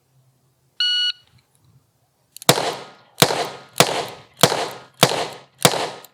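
A shot timer's start beep, then six .357 Magnum revolver shots fired about two-thirds of a second apart, each with a ringing tail.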